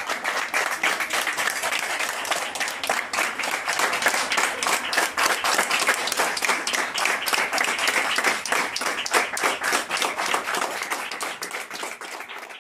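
A group of people applauding, many overlapping hand claps, tapering off near the end.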